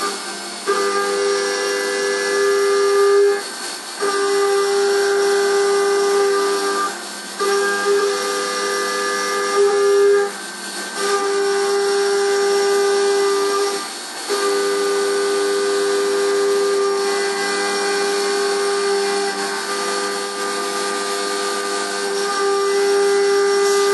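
CNC milling machine's 10 mm cutter milling the excess material off the outside edges of a shock tower plate: a steady cutting whine that drops out briefly about every three to four seconds.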